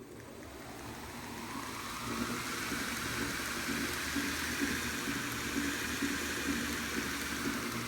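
Reeder Products belt grinder running up to speed on its VFD-driven motor, its hum and belt hiss rising over the first two seconds, then running steadily with a faint regular pulse.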